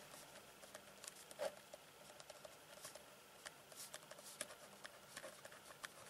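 Ballpoint pen writing on paper: faint scratching with small scattered ticks as the strokes are made.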